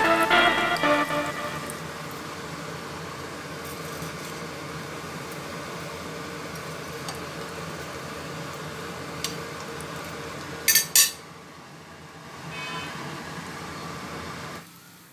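Hot oil sizzling steadily as breaded bread rolls shallow-fry in a nonstick frying pan. About eleven seconds in there are two sharp clinks of a metal spoon against the pan.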